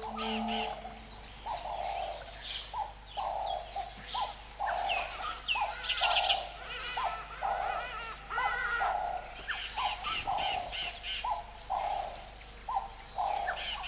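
Wild birds calling in swamp forest: a short hooting note repeated about twice a second, with assorted chirps and whistles from other birds above it.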